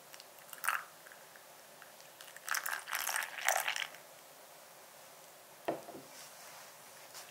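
Water poured from a small jug into a glass bowl of powder: brief trickling splashes, the longest lasting about a second and a half, then a single soft knock later on.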